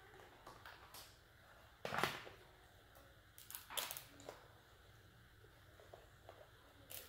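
King crab leg shell cracking and snapping as it is broken apart by hand, in a few short, sharp crackles; the loudest comes about two seconds in, and more follow a second or two later.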